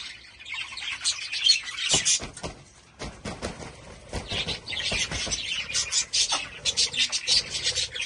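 A flock of budgerigars chattering with dense, rapid high chirps and warbles, easing off briefly about two seconds in and then building back up.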